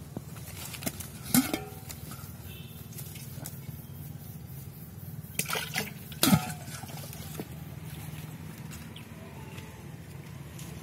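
Water splashing in a metal bowl as a hand dips into it, with sharp ringing clinks from the bowl about a second and a half in and again about six seconds in.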